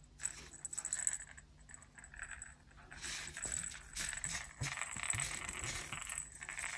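Rattle insert inside a crocheted giraffe baby toy rattling as the toy is picked up and turned over in the hands, with light clicks and rustling that get busier about halfway through.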